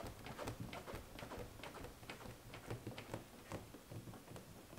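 Faint, irregular light taps and clicks, several a second, thinning out near the end: hands pressing a taped door molding onto a car door.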